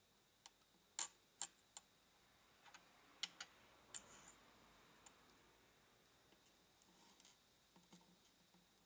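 Small hard-plastic Re-Ment miniature toy pieces clicking and tapping as they are handled and set down on a tabletop: several sharp clicks in the first four seconds, then only faint ticks.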